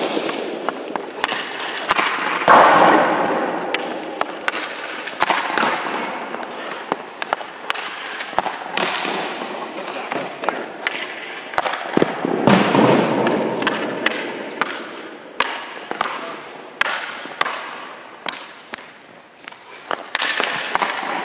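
Hockey pucks being shot at a goalie in an ice rink: many sharp clacks of stick on puck and pucks hitting pads, net or boards. Two longer scraping noises on the ice swell up, about two and a half seconds in and again about twelve seconds in.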